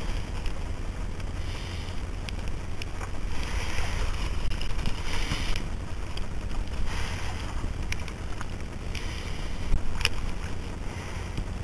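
Wind buffeting the microphone in a steady low rumble, with seawater sloshing and splashing close by in surges every second or two, from a camera held at the ocean's surface.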